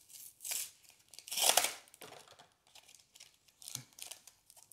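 Paper-and-plastic packaging of a Pokémon trading-card blister pack torn open by hand: a series of short rips and crinkles, the loudest and longest about a second and a half in.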